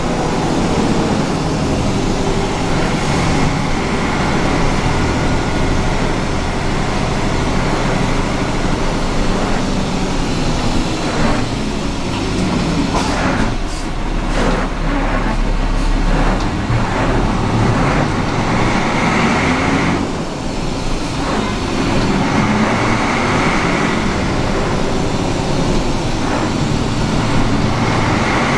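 Fiat 418 AC city bus's diesel engine running under way, heard from inside the cabin, its pitch rising and falling as the bus accelerates and changes gear through its manual gearbox. A cluster of knocks and rattles comes about halfway through.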